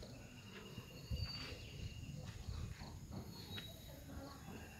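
Faint outdoor background: a few thin, high chirping tones over a low rumble and soft thumps from the handheld camera being carried.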